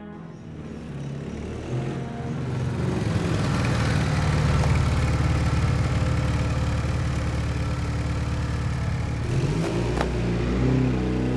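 Military sidecar motorcycle engine running, growing louder over the first few seconds and then holding steady. A single sharp click comes near the end.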